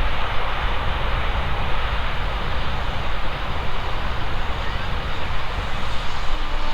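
Train passing: a steady rumble with a rushing noise over it. Near the end a steady held tone with several pitches comes in over the rumble.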